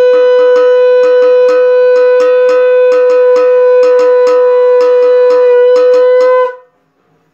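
Conch shell (shankha) blown in one long, steady, loud note, sounded for the lamp offering of a puja. A hand bell rings alongside it at about three to four strokes a second. Both stop near the end.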